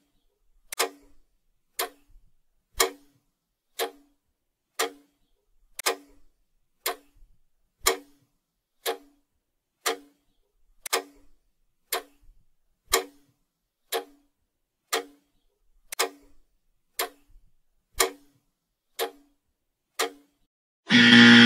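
Countdown timer's clock ticking, one short tick each second. Near the end a loud, sustained buzzer starts, signalling that the time is up.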